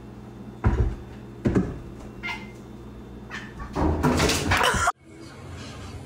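A cat meowing a couple of times among heavy thumps, then a loud clattering burst that stops abruptly.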